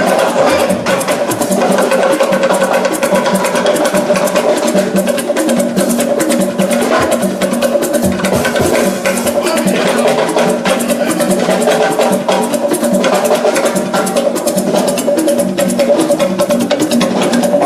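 Live music with fast, busy percussion over a steady held note.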